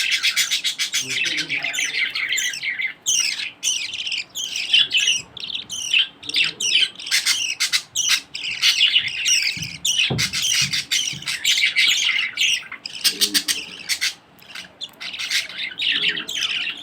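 Budgerigars chirping and squawking in fast, high-pitched runs of short down-sliding notes with a few brief pauses: typical of a budgie chick begging while a parent feeds it.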